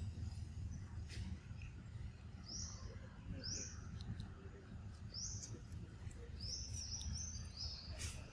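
A bird giving short, high, repeated chirps, spaced a second or so apart at first and coming closer together in the second half, over a steady low background rumble.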